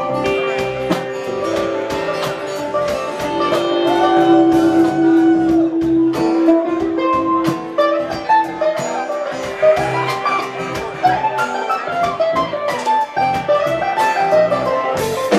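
Live acoustic band in an instrumental break: a mandolin picking a solo over strummed acoustic guitar and upright bass, with no singing.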